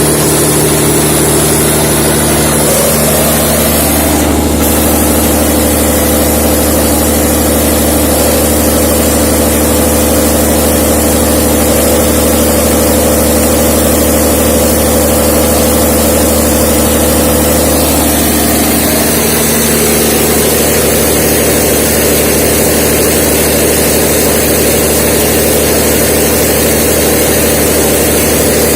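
A 790 kVA Perkins diesel generator running steadily, a loud, even engine drone. Its tone shifts slightly about three seconds in and again about nineteen seconds in.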